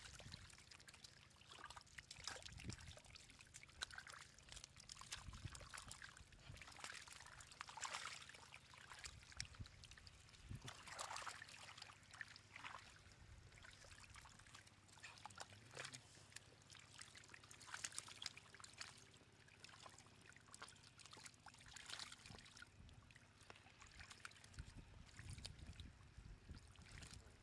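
Faint, irregular splashing and sloshing of shallow muddy water with small wet clicks, as catfish wriggle and hands scoop them toward a plastic basket.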